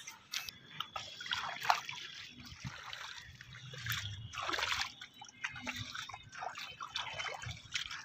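Water splashing and trickling underfoot as bare feet step across a wet concrete roof, in irregular soft bursts.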